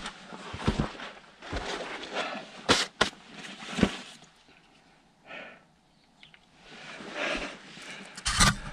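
Scrapes and knocks of a person crawling on hands and knees through a low gap in sandstone rock: clothing, hands and boots scuffing on rock and gritty sand. A quiet pause about midway, then the scuffing starts again and is loudest near the end.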